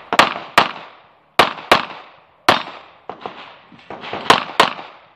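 Semi-automatic pistol firing about seven shots, mostly in quick pairs (double taps), each a sharp crack with a short echo trailing off. Fainter pops sound between the pairs.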